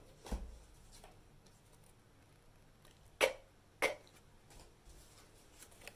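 Paper flashcards being handled: two short, sharp taps about half a second apart a little past halfway, over quiet room tone with a faint low thump near the start.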